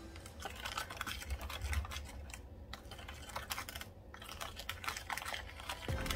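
Tint brush stirring thick blue hair-bleach paste in a plastic mixing bowl, making quick, irregular clicks and scrapes as the brush knocks against the sides.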